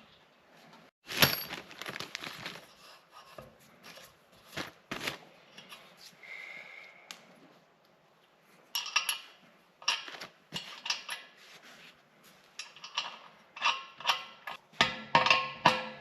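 Irregular metallic clinks and knocks of bolt hardware and tools as the compressor is set onto its floor anchor bolts and bolted down, with a brief ringing note about six seconds in.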